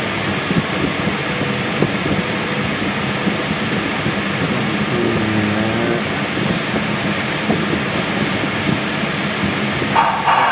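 Steady rush of airflow over the canopy of a Schempp-Hirth Duo Discus glider in flight, heard inside the cockpit. A brief tone sounds near the end.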